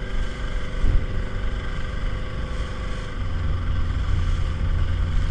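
Small motorboat's outboard engine running steadily under way. About three seconds in, its low note grows stronger.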